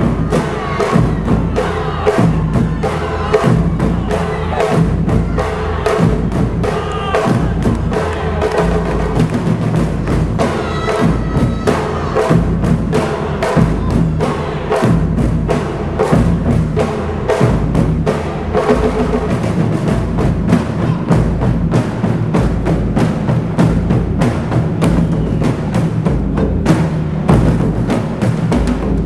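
Japanese taiko drum ensemble playing a fast, dense rhythm without a break: deep low strikes on large barrel drums mixed with quick stick hits.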